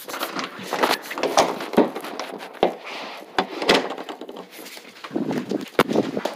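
Handling noise from a phone being moved about against blanket and clothing: rustling with irregular knocks.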